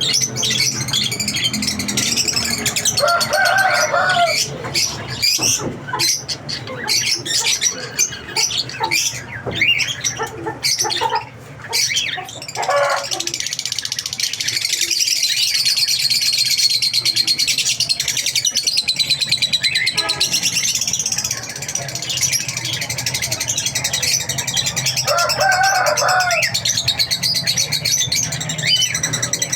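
A cage of lovebirds chattering nonstop with dense, high-pitched chirps and twitters. It is broken by a couple of lower, louder calls, about three seconds in and again near the end.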